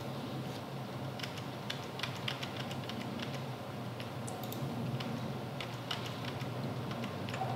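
Scattered, irregular light clicks of a computer keyboard and mouse being worked, over a steady low hum.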